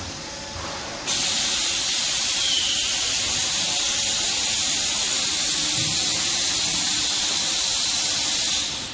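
Compressed air hissing steadily from an automatic inner-tank air leak tester. It starts abruptly about a second in and dies away near the end.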